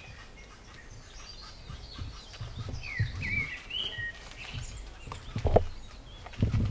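A small bird chirping and warbling in short rising and falling phrases, with a few low thumps; the loudest thump comes about five and a half seconds in.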